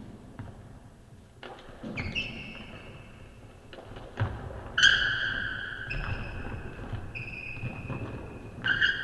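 Basketball sneakers squeaking on a hardwood gym floor, about five sharp squeaks each held half a second to a second, among thuds of footfalls and the ball bouncing.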